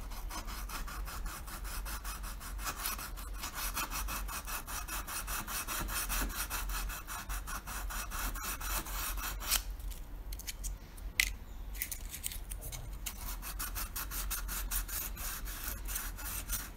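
Hand-sanding a 3D-printed plastic mask with a small piece of sandpaper: rapid short scratchy back-and-forth strokes, with a brief pause about ten seconds in.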